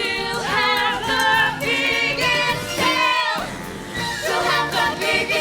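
Show-tune singing: voices holding notes with a wide vibrato over a musical accompaniment.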